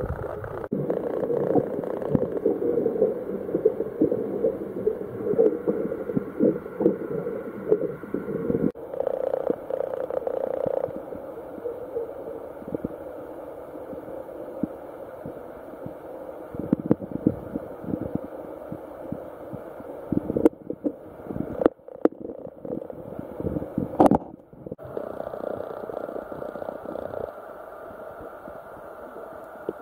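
Muffled underwater sound from a submerged waterproof camera: water sloshing and churning around it with many irregular knocks and clicks. The sound is louder in the first third and drops out abruptly a few times about two-thirds of the way through.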